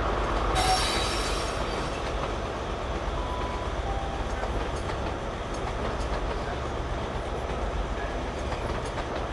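InterCity 125 high-speed train led by Class 43 power car 43150 coming into the platform: a steady low rumble of the train rolling in with wheels clicking over rail joints, and a brief high-pitched burst of noise about half a second in.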